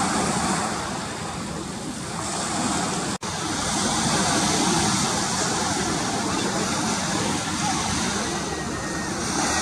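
Surf washing onto the beach and rushing water, a steady noisy wash with a few faint gull calls over it; the sound breaks off for an instant about three seconds in.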